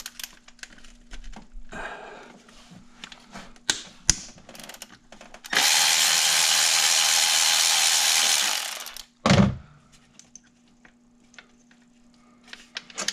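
Ratchet wrench clicking, with metal clinks, on rusty intake-manifold bolts. About five and a half seconds in comes a loud steady hiss lasting about three seconds, and a thump follows shortly after it stops.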